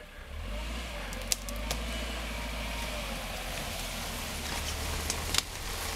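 A 1997 Suzuki Sidekick's four-cylinder engine running at low speed as the 4x4 crawls through tall grass, a steady low rumble under a hiss of brushing vegetation, with a couple of sharp snaps.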